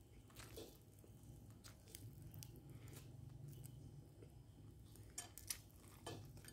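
Near silence: faint, scattered soft clicks from wooden chopsticks pulling apart a crispy-fried climbing perch over a bowl of rice, over a low steady hum.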